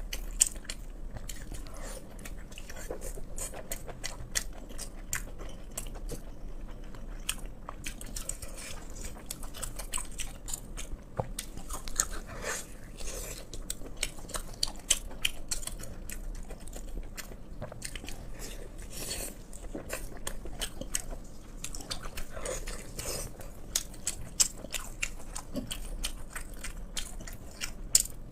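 A person chewing and biting pork close to the microphone: a continuous run of small wet mouth clicks and crunches, with a few louder bites.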